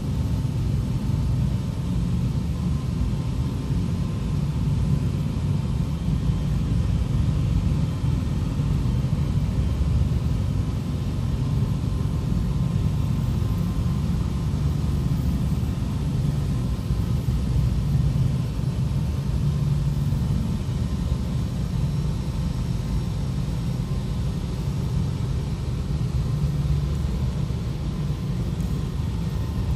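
Steady low rumble inside a car's cabin as it passes through an automatic car wash, the wash machinery and cloth strips working over the wet windscreen.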